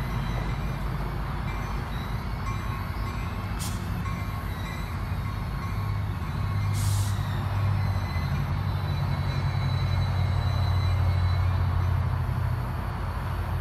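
Diesel-electric commuter locomotive running with a steady low hum that grows stronger about halfway through. Two short hisses of released air, about 3.5 and 7 seconds in.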